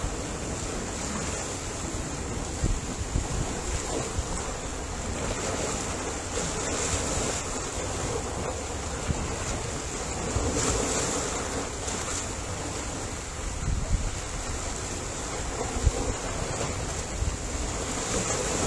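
Ocean surf washing steadily, with wind buffeting the microphone in low, irregular gusts.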